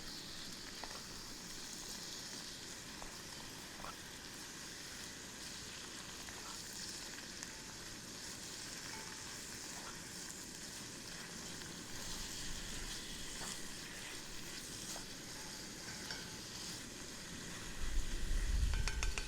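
Beef browning in a hot pan with a steady sizzle and a few faint ticks. A louder low rumble joins near the end.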